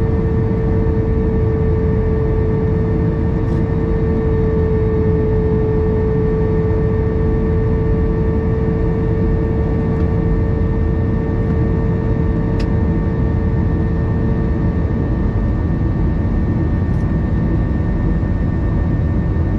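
Jet airliner cabin noise in the climb after take-off, heard inside the cabin: a steady low rumble and rush from the engines and airflow, with a steady hum tone that fades out about fifteen seconds in.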